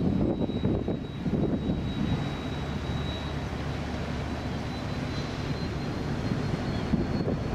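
Royal Navy Type 23 frigate passing close by: a steady low machinery rumble with a thin high whine that edges up in pitch late on.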